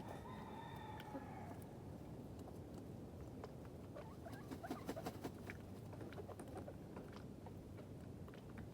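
Chickens pecking, a run of quick light taps in the middle, after a hen's drawn-out pitched call at the start. A steady low rumble runs underneath.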